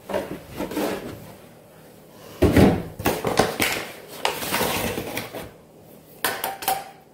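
Kitchen handling sounds on a wooden counter: a plastic milk jug set down with a solid thump about two and a half seconds in, then the paper flour bag rustling as a hand reaches in for flour.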